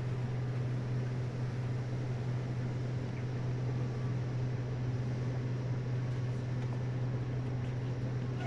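Meitetsu 100 series electric train standing at a platform, its onboard equipment giving a steady low hum over a hiss of machinery noise.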